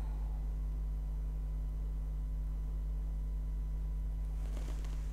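Steady low electrical hum with a few faint higher overtones, unchanging throughout.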